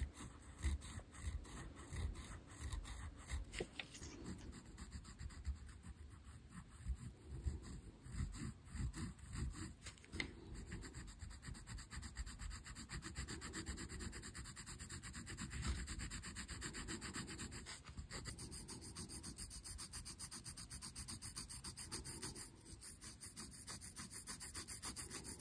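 Derwent colour pencil shading on calico laid over sandpaper: a faint rubbing of quick, repeated back-and-forth strokes.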